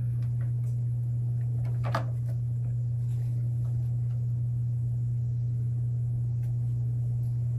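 A steady low hum that doesn't change, with one faint click about two seconds in.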